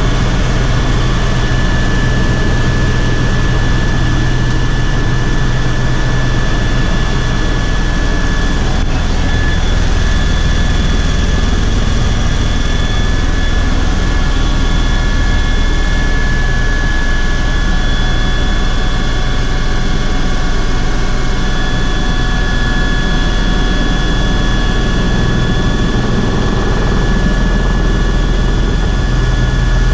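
Helicopter turbine engine and rotor heard from inside the cabin in flight: a loud, steady high whine over a low drone from the rotor.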